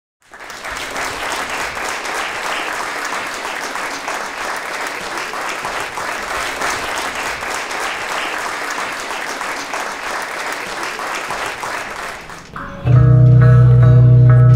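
Audience applauding steadily for about twelve seconds. Near the end, loud music with a heavy bass starts suddenly.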